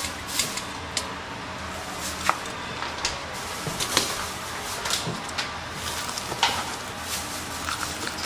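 Kitchen handling sounds over a steady background hiss: scattered clicks and taps of metal tongs against a stainless steel container, with the fried chicken set down on a plastic cutting board. Near the end a knife begins cutting into the crisp fried crust of the chicken.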